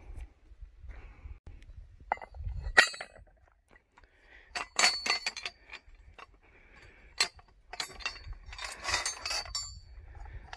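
Hanging steel rifle targets, dented by bullet hits, clinking against their straps and mounts as they are handled. There are a series of sharp metallic clinks, some leaving a brief high ringing note.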